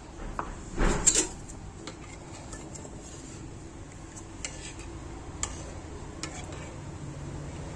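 A metal ladle stirring thin curry in a metal cooking pot, clinking and scraping against the pot's sides, with a louder clatter of clinks about a second in and scattered single clinks after.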